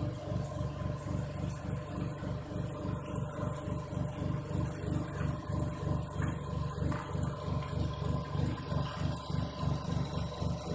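Small feed pellet machine driven by a 1 HP electric motor, running steadily with a hum and a low pulsing about three times a second.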